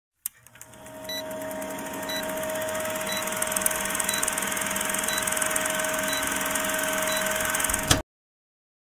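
Vintage film-countdown sound effect: a film projector running with a steady whir, hum and crackling hiss, with a short beep about once a second. It ends with a loud pop and cuts off suddenly.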